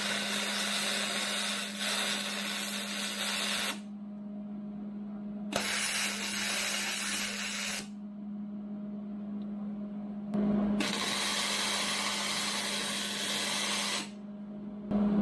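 Wire-feed welder laying short welds on steel bumper parts. The arc crackles and sizzles in three runs of a few seconds each, with a fourth starting right at the end, over a steady low hum.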